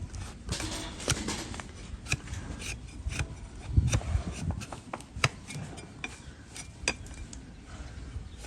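A hoof knife cutting and scraping a donkey's hoof horn during a trim: irregular sharp scrapes and clicks, with a few dull knocks about halfway through.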